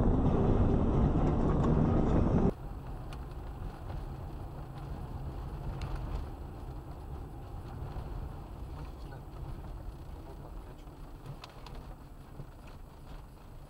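Car driving, heard from inside through a dashcam: a loud, steady low rumble of engine and tyres that cuts off abruptly about two and a half seconds in, replaced by a quieter, steady low rumble of another car driving over a snow-covered road.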